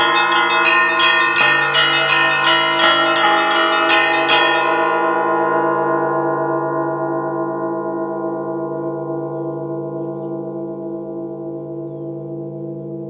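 Russian Orthodox church bells being rung: rapid strikes across several bells, high and low, stop about four and a half seconds in. The bells then ring on and fade slowly, the deep hum of the large bells lasting longest.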